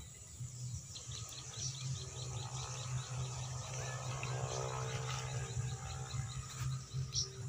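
Bird chirping over woodland ambience: a quick run of high chirps, about four a second, then a single louder chirp near the end, over a steady low rumble.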